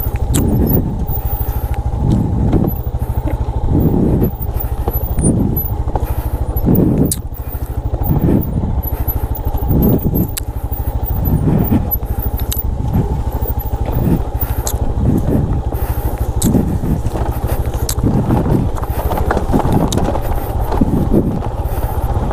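Motorcycle engine running steadily while riding, a continuous low drone with a steady higher hum, rising and falling in a regular pulse about once a second.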